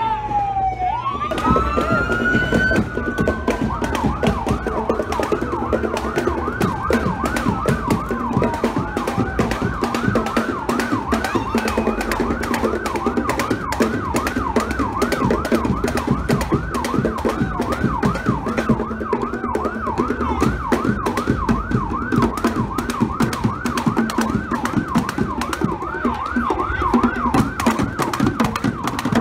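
Emergency-vehicle siren sweeping slowly up and down, then switching to a fast yelp about ten seconds in. Under it, a marching band's drums beat steadily throughout.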